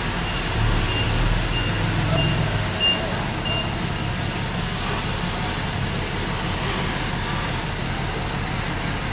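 A heavy diesel machine runs steadily while a reversing alarm beeps about every two-thirds of a second. The beeping stops a little over three seconds in. Two short high squeaks come near the end.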